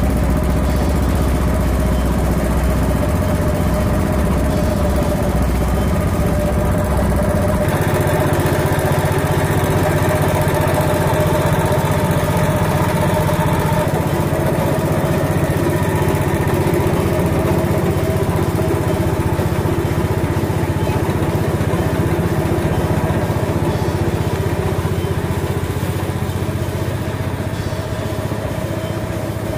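Small single-cylinder petrol engine running steadily as it drives a belt-driven grass chopper, with no grass being fed. About seven seconds in the engine note shifts higher as it speeds up, then holds steady.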